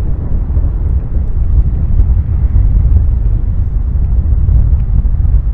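Wind buffeting the camcorder's built-in microphone: a loud, low, unpitched rumble.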